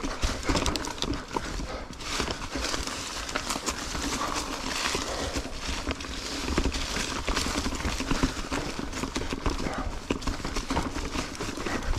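Ibis Ripmo V1 mountain bike rolling slowly over trail rocks. The tyres, chain and frame rattle in quick, irregular clicks and knocks.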